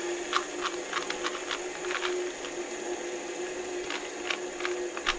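3x3 Rubik's cube being turned rapidly in a speed solve: a quick, irregular clatter of clicks as the layers snap round, over a steady hum.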